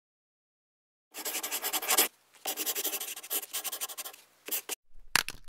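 A pen scribbling on paper in quick scratchy strokes: a second of scribbling, a short pause, a longer stretch of about two seconds, then a few short strokes near the end.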